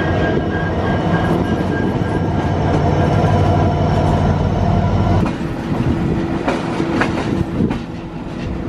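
Alaska Railroad EMD SD70MAC diesel-electric locomotives running close alongside, a heavy engine drone with a steady high whine above it. About five seconds in this gives way to a quieter rumble of train wheels on the rails, with a few sharp clicks.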